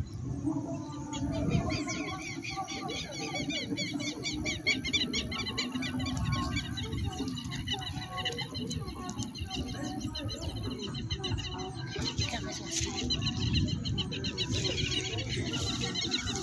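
Birds chirping in quick repeated runs, in two spells, over wind rumbling on the microphone.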